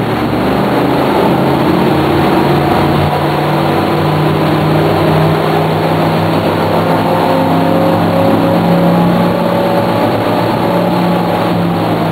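The Regal 4060 cruiser's inboard engines throttling up from slow speed: the engine note rises over the first couple of seconds, then runs steady under a loud rush of water and wind.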